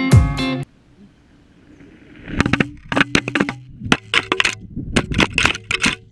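Guitar music cuts off abruptly within the first second. Then a GoPro action camera tumbles as it falls, giving a rapid, irregular run of knocks, clatters and scrapes as it strikes the ground.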